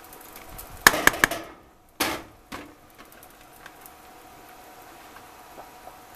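Cut green cabbage going into a pot of hot fat and oil: a quick run of sharp knocks and clatter about a second in and two more near two seconds, then a faint steady sizzle.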